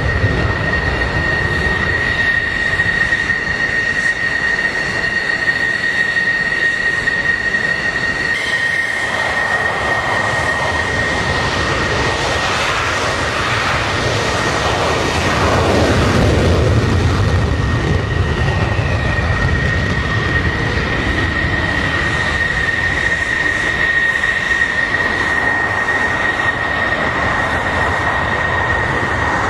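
F-15 Eagle fighter jets taking off, their twin Pratt & Whitney F100 turbofans in afterburner: a steady high-pitched whine over a broad roar and low rumble. The roar swells about halfway through.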